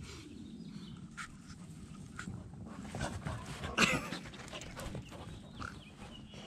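Two dogs playing and wrestling on grass, panting and scuffling. A louder sharp burst comes just before four seconds in.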